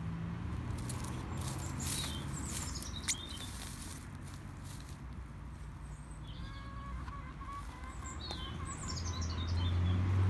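Outdoor birds chirping and calling in short high phrases, over a low steady rumble that grows louder near the end, with one sharp click about three seconds in.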